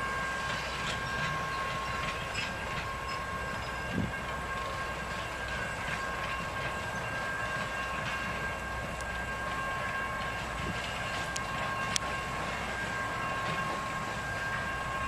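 A train rolling slowly past on the track, the Thomas the Tank Engine replica locomotive with its coaches: a steady rumble of the wheels and cars, with a low knock about four seconds in and a sharp click later on.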